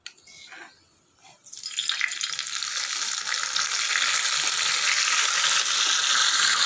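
Hot-oil spice tempering of mustard seeds, cumin, garlic, dried chillies and curry leaves sizzling loudly as it is combined with the tomato rasam. The sizzle starts suddenly about a second and a half in and then holds steady.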